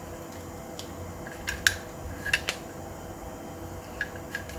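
Small clicks and taps of gel blaster parts being handled and fitted during reassembly of a Golden Eagle Hi-Capa 4.3 gas blowback pistol. There are about six scattered clicks, the loudest a little under two seconds in, over a steady low hum.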